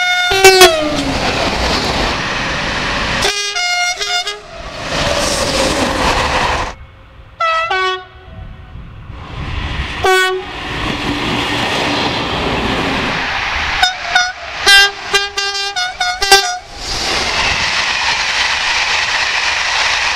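SNCF train horns sounding in a string of blasts, some long and some short and clipped, one falling in pitch as a train rushes past about half a second in. Between the blasts comes the steady rush of trains passing at speed, with a run of quick short toots near the end.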